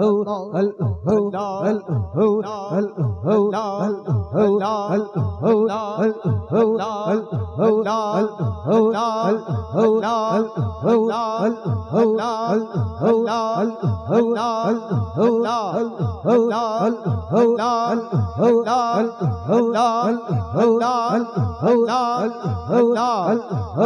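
Devotional background chanting between naat verses: a steady droning vocal hum with a regular pulse, about one and a half beats a second.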